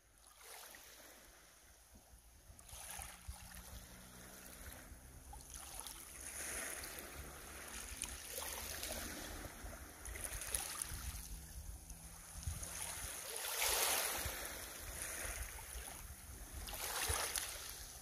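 Small waves lapping onto a pebble beach. Each wash swells and draws back every two to three seconds, the biggest about two thirds of the way through, over a low rumble of wind on the microphone.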